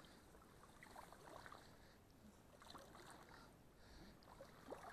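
Faint, scattered splashing and rustling of a jagdterrier swimming through shallow marsh water and reeds.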